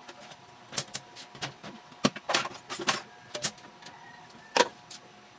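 Kitchen utensils and plastic clattering as someone rummages through a plastic kitchen drawer: a run of sharp, irregular clacks and rattles, the loudest near the end.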